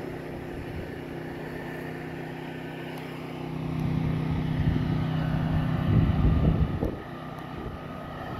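Motor of a Rescue 17 RC fireboat running with a steady hum. It grows louder about three and a half seconds in and drops back shortly before the end.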